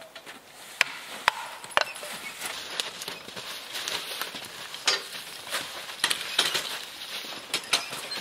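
A hatchet's back knocks a plastic felling wedge into a log three times, about half a second apart. Scattered lighter knocks and clinks follow.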